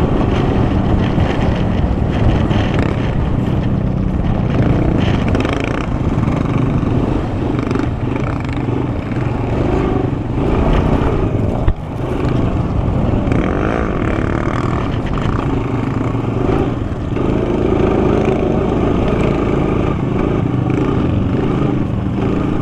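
Honda sport quad's engine running under way across sand, the revs rising and falling. There is one sharp knock about halfway through.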